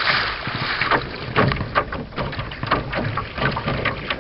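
Lake water splashing and slapping irregularly around a kayak, with wind buffeting the microphone.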